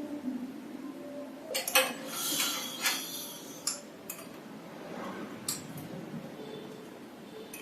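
Metal parts clinking and rattling: a few sharp clicks with a brief rattle about two seconds in, as the servo motor gear assembly of a voltage stabilizer is unfastened and taken out.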